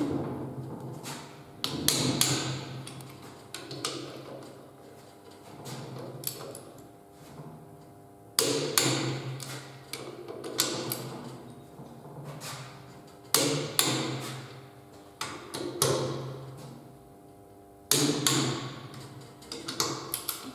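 Torque wrench ratcheting on engine bearing-cap bolts with a 17 mm socket: about five bursts of fast metal clicking, each begun by a sharp clank, with pauses between strokes.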